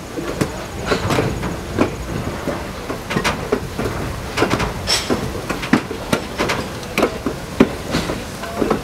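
Railroad passenger car rolling along the track, with a steady running rumble and frequent irregular clanks, clicks and rattles from the car and wheels on the rails.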